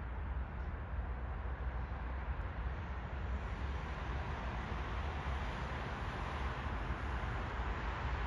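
Steady rumble of distant city traffic, a continuous low roar that swells slightly from about three seconds in.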